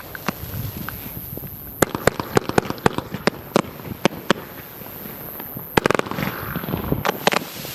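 A 22-shot consumer fireworks cake, JD Fireworks' Husker Don'ts, firing. It gives a series of sharp pops at irregular intervals, with a tight flurry of pops about six seconds in.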